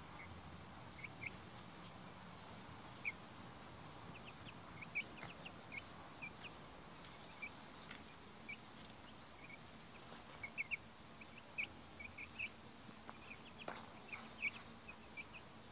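Young chicks peeping with short, high chirps, scattered singly and in quick pairs, coming more often in the second half, while they forage in grass.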